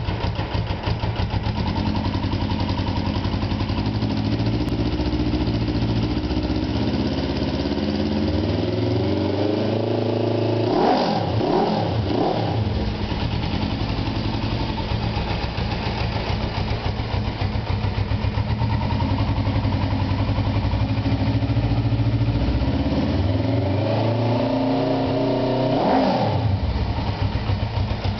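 Suzuki GS500 air-cooled parallel-twin motorcycle engine breathing through a Roncar RS5 aftermarket exhaust, idling and revved twice: each time the revs climb over several seconds, then drop quickly back to idle.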